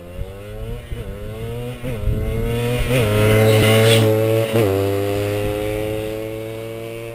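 Suzuki JR80 two-stroke dirt bike accelerating past, its engine note climbing and dropping back at each of several upshifts. It is loudest as it passes close by, about four seconds in, then holds a steadier, fading note as it moves away.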